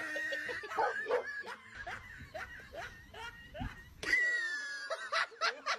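A dog yelping and a person laughing in quick short bursts, a few a second. About four seconds in, after a sudden change, a single high, drawn-out cry falls slightly in pitch.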